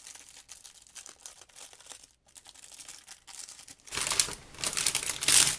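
Clear plastic packaging bag rustling faintly as a notebook is slid out of it, then crinkling loudly from about four seconds in as the bag is handled.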